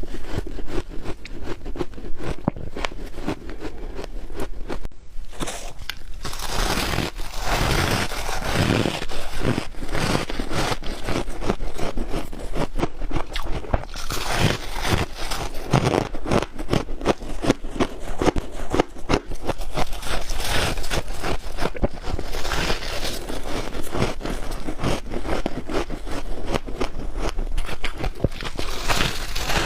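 Close-up biting and chewing of soft freezer frost: a dense, rapid run of crunches, with a brief break about five seconds in.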